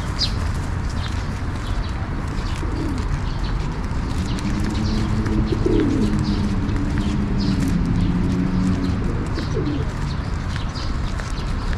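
Feral pigeons cooing in low, wavering phrases for several seconds through the middle, with small birds chirping faintly above, over a steady low background noise.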